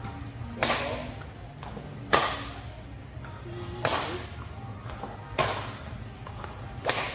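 Badminton rackets striking a shuttlecock in a rally of long overhead clears: five sharp smacks, about one every second and a half, some louder than others.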